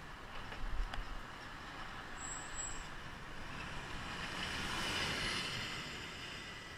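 A single-decker city bus overtaking close alongside a bicycle, its engine and tyre noise swelling to a peak about five seconds in and then fading as it pulls away, over steady road noise.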